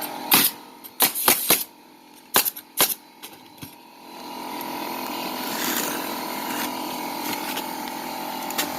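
Pneumatic roofing nailer firing into shingles: about six sharp shots in the first three seconds. From about four seconds in, a steady machine hum builds up and holds.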